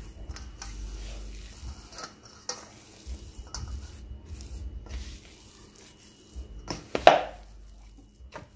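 Silicone spatula scraping and folding stiff oatmeal cookie dough in a stainless steel bowl, mixed by hand without a mixer, with irregular scrapes and dull thumps. A louder knock against the bowl comes about seven seconds in.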